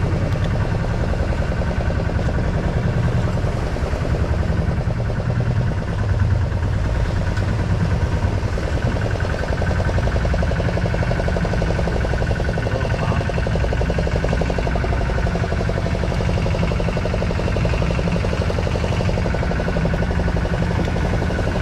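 Fishing boat's engine running steadily, a dense low pulsing drone that holds an even level throughout.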